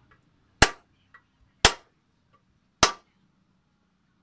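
Three hammer blows, about a second apart, on the rivets of a truck brake shoe held on a steel block, each a sharp metallic strike with a short ring.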